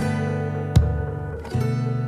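Background music: an acoustic guitar strumming chords, one strum about every three-quarters of a second.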